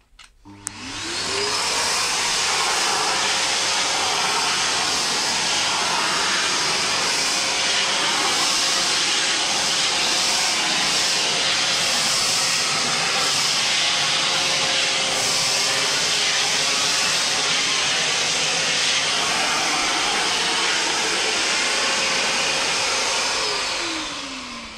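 Bosch AdvancedVac 20 wet/dry vacuum cleaner switched on, its motor rising to speed within about a second, then running steadily as the floor nozzle sucks up wood shavings. Near the end it is switched off and the motor winds down with a falling tone.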